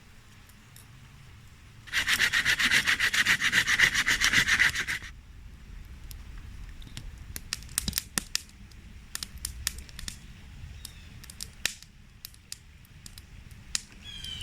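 Quick, rapid scraping strokes for about three seconds, starting about two seconds in, then scattered light clicks and taps.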